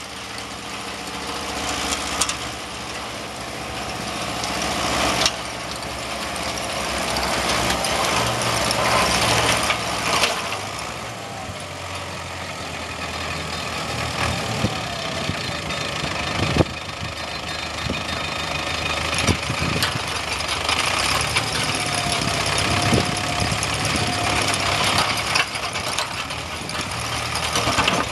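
Diesel tractor engine running steadily under load while its rear-mounted soil grinder churns through earth and turf, a continuous mechanical clatter over the engine hum. Several sharp knocks stand out along the way, as hard bits strike the grinder.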